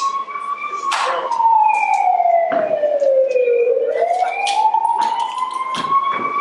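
Police siren sound effect in a slow wail, falling and then rising in pitch. Three sharp knocks sound over it.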